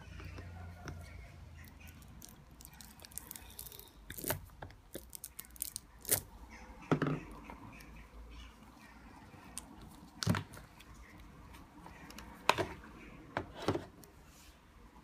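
Light clicks and knocks of plastic and rubber parts being handled at an Epson ink-tank printer's external ink tank unit, as its rubber tank plugs are fitted and the tank unit is moved. The clicks come irregularly, with a few louder knocks spread through.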